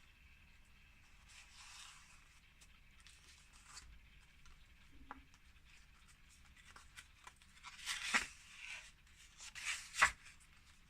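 Paper being handled and rustled, faint at first, then sharper crackling and tearing bursts from about eight seconds in, the loudest near the end.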